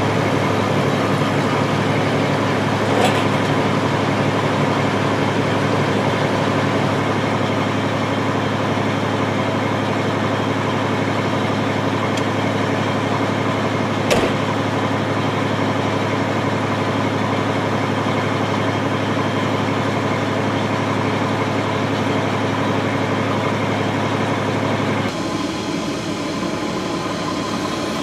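Caterpillar D6N dozer's diesel engine idling steadily, with a couple of short knocks. About 25 seconds in, the low hum drops away and a quieter steady hum remains.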